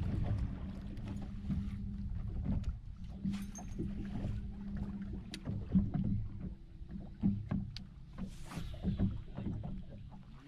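Electric trolling motor humming steadily under a fishing boat, with scattered small clicks and taps.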